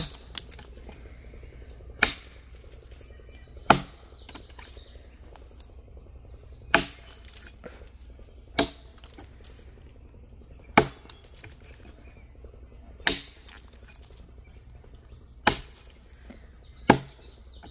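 Full-size axe chopping into a green log to buck it through: nine sharp strikes into the wood, irregularly spaced about two seconds apart, with a longer pause after the third.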